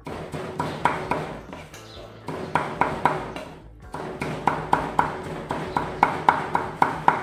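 Kitchen knife chopping on a thick round wooden chopping block, mincing raw prahok (fermented fish paste): runs of quick, sharp knocks, a few a second, broken by short pauses.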